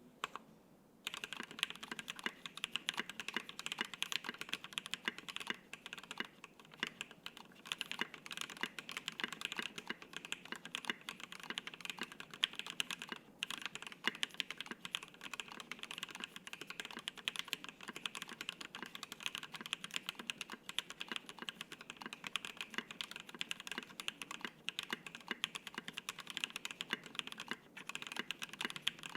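Fast continuous typing on a custom mechanical keyboard: stock Water King linear switches on an FR-4 plate with dye-sub PBT keycaps, giving dense keystroke clacks. It starts about a second in, with brief pauses twice.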